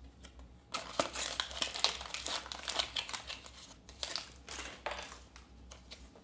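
Foil wrapper of a Pokémon booster pack crinkling in the hands as the pack is opened, a quick run of crackles starting about a second in and tapering off near the end.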